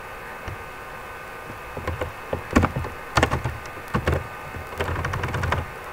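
Computer keyboard typing: irregular clacking keystrokes starting about two seconds in, over a faint steady background hum.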